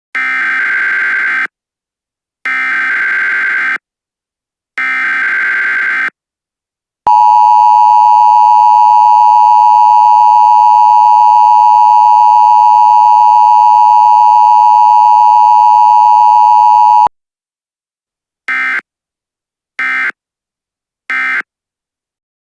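Emergency Alert System tones. First come three bursts of about a second each of warbling SAME digital header data. Then the EAS two-tone attention signal holds steady for about ten seconds, loudest of all. It stops abruptly, and three short end-of-message data bursts follow.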